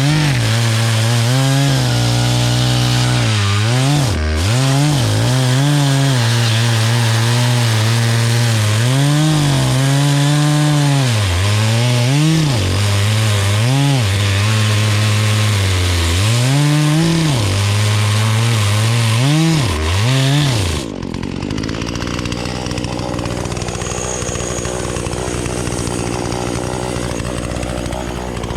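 Two-stroke chainsaw cutting through wood at high revs, its engine note sagging and recovering again and again as the chain bites into the cut. About three-quarters of the way through, the sound changes abruptly to a quieter, steady engine note.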